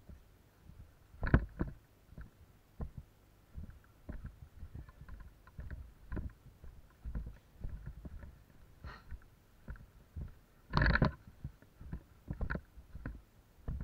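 Footsteps moving through a forest, irregular thumps and crunches on leaf litter and twigs with undergrowth brushing past. A louder rustle about eleven seconds in.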